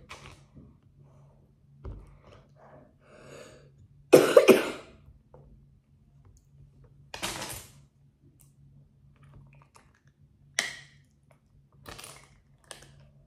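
Plastic Lego-type bricks being handled: scattered clicks and clatter as pieces are picked out and pushed together, with a louder short burst about four seconds in. A faint steady hum runs underneath.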